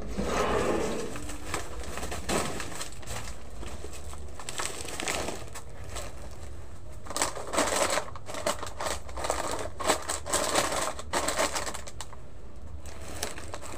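Plastic snack and noodle packets crinkling and rustling as they are handled and stacked on shop shelves, with irregular clicks and light knocks that come thickest in the second half.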